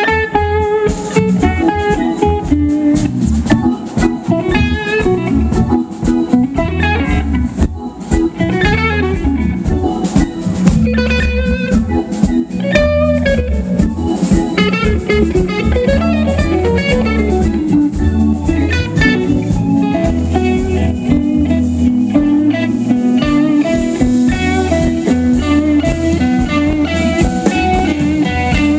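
Live band playing: an electric guitar leads with bent notes over a drum kit.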